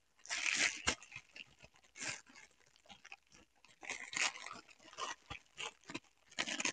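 Clear plastic toy packaging crinkling and rustling in short, irregular bursts as it is handled and pulled open by hand.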